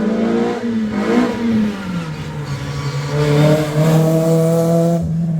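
Rally car engine running hard at high revs; its pitch drops about a second and a half in, then holds steady.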